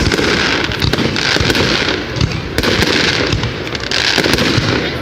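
Fireworks going off: a dense crackling hiss studded with many sharp pops, swelling and easing every second or two.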